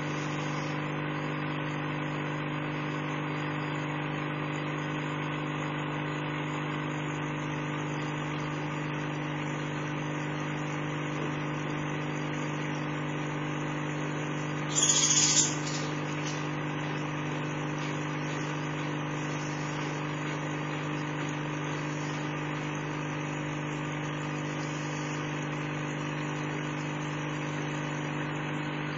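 A steady, even machine hum with no change in pitch. A brief, louder rustling burst comes about halfway through.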